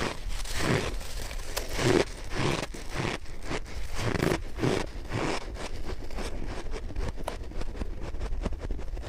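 A mouthful of soft freezer frost being bitten and chewed: a run of crunches about two a second for the first five seconds, then fine crackling as the frost breaks down.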